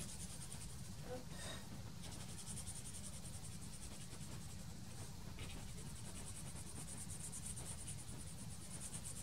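Faint room tone: a steady low rumble under a high, rapidly pulsing hiss, with a soft tap about a second and a half in and a fainter one around five seconds.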